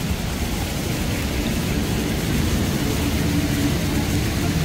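City street traffic: a steady low rumble of engines and tyres, with one vehicle's engine hum standing out a little from about a second and a half in.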